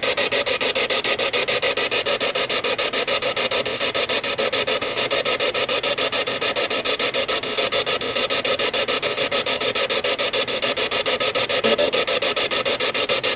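Ghost-hunting spirit box, a radio scanning rapidly through stations, giving a steady hiss of static chopped at an even, fast rate. The listeners take it as a reply in which it almost sounded like it said a name.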